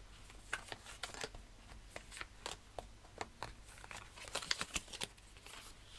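Paper oracle cards handled on a table: soft, irregular clicks and flicks as cards are picked up and slid against one another, busier about two-thirds of the way through.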